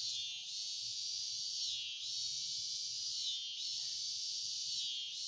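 Dense chorus of insects trilling at a high pitch, swelling and dipping about every second and a half.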